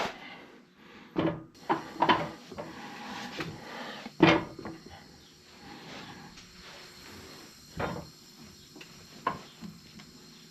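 A handful of separate knocks and clunks, the loudest about four seconds in, as motorcycle/ATV adapters are fitted and locked onto a tire-changing machine's clamp jaws.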